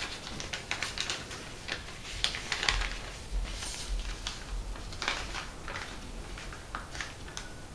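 A sheet of origami paper being handled and folded: irregular crinkles, rustles and small sharp clicks as it is bent and pressed into creases.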